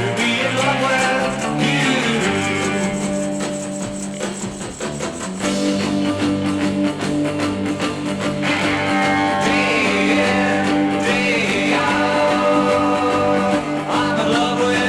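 A mid-1960s pop record playing a stretch without lead vocal, led by guitar over a steady beat.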